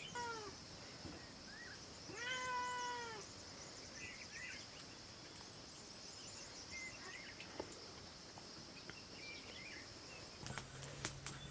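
An animal calling: a short falling cry at the very start and one longer, arched cry about two seconds in. A steady high hiss lies under both calls, with a few faint chirps, and some sharp clicks come near the end.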